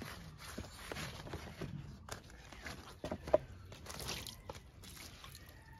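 Faint crisp scraping and tearing as a knife cuts fresh banana leaves away from the midrib, with a few sharper knocks about three seconds in. Near the end, water splashes as a banana leaf is rinsed.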